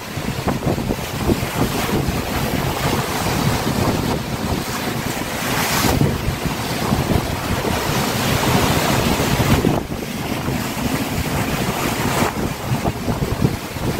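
Wind buffeting the microphone over the sound of sea surf, with louder surges of waves about six seconds in and again around eight to nine seconds, dropping back just before ten seconds.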